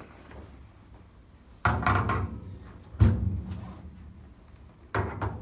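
Three heavy thunks on a chiropractic treatment table during a spinal decompression, each sudden and dying away within a second: the first a little under two seconds in, the second about a second later, the third near the end.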